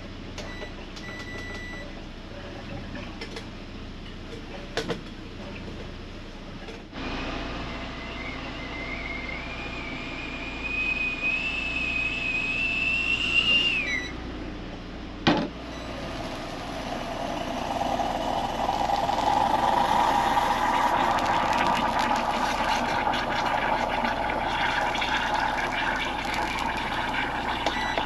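A stainless whistling kettle on an induction hob whistles, its pitch rising slowly for about seven seconds before it cuts off suddenly. A sharp click follows. Then a moka pot on the hob hisses and gurgles, growing louder, as the coffee comes up.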